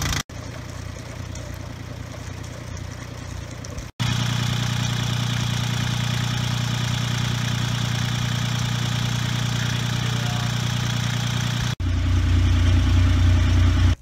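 Yanmar 3GM30F three-cylinder marine diesel running steadily, its new water pump and alternator belts turning on test. The sound is broken by three abrupt cuts, with the loudness jumping after each one.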